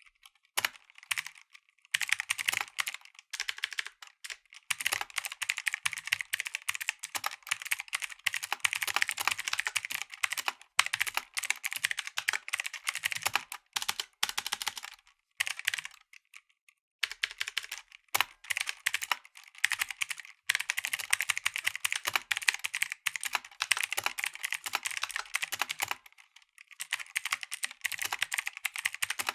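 Mechanical keyboard with blue (clicky) switches being typed on fast, a dense run of sharp clicks in bursts broken by short pauses.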